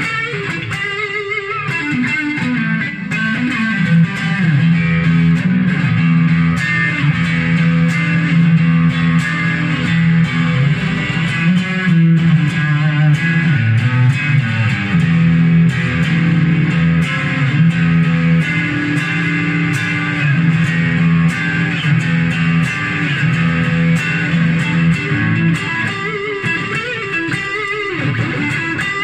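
Stratocaster-style electric guitar played through a small Fender combo amp: picked single-note lines and riffs over low notes. It is being test-played to check the action and intonation after a setup.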